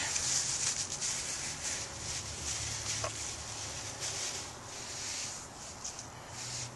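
Hand-drill fire-making: a wooden spindle spun back and forth between the palms on a sunflower-root hearth, giving a rubbing hiss that pulses with each stroke and slowly fades.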